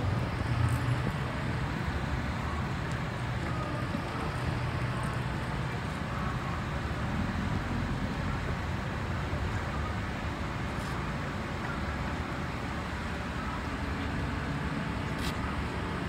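Steady road traffic and vehicle engine noise, with a couple of faint clicks.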